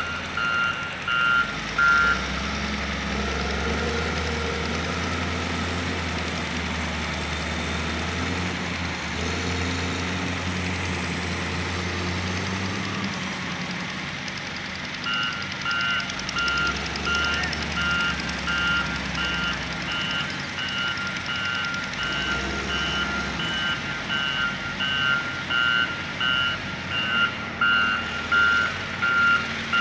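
An electronic warning beeper, beeping evenly about twice a second over the low rumble of a running vehicle engine. The beeping stops a couple of seconds in and starts again about halfway through.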